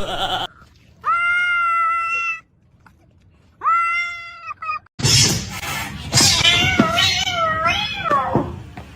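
Domestic cat yowling: two long, drawn-out yowls at a steady pitch, then about halfway through a louder, noisier stretch with a yowl that wavers up and down in pitch.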